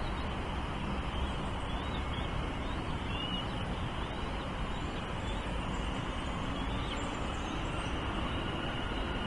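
Steady low rumbling outdoor background noise with no clear rhythm, with a few faint, short high chirps from small birds.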